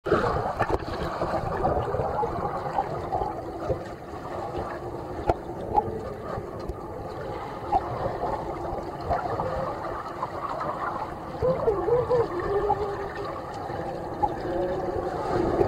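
Muffled underwater sound of a swimming pool, heard through a submerged camera: a steady dull rush of water with bubbling from swimmers moving past. Faint muffled voices come through from above the surface.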